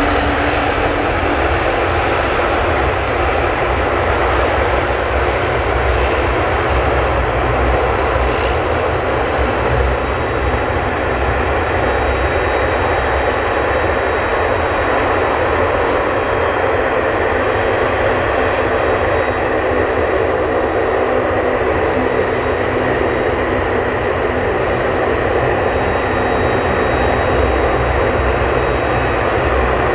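Boeing 767-300 airliner's twin turbofan engines running steadily at idle while the jet stands still: an even, unchanging rush with a faint high whine coming and going.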